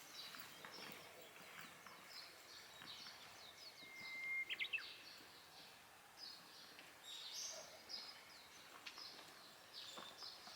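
Small songbirds chirping and twittering faintly, with one clearer, louder whistled note about four seconds in.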